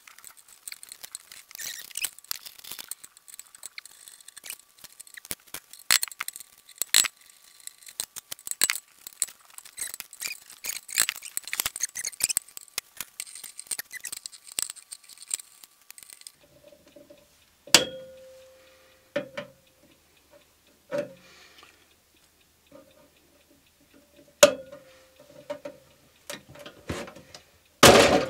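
Small clicks and scrapes of screws being worked out of a vintage signal generator's steel case while the unit is handled. About 16 s in it turns to a few separate knocks on the case, each leaving a short metallic ring. The loudest knock comes near the end.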